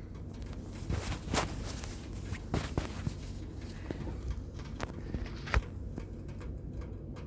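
Scattered light clicks and taps of hand tools and small parts being handled during bench soldering, irregular and a second or so apart, with the loudest tap about five and a half seconds in, over a steady low hum.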